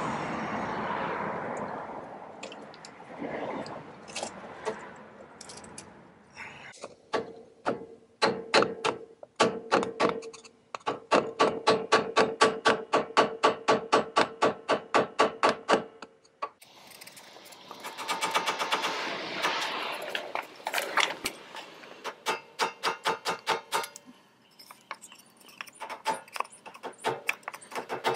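Rapid hammer blows in three runs of about four a second, struck on a wooden block held against the end of a Dana 35 rear axle tube to drive the new axle oil seal into its bore. The loudest run rings with a metallic tone.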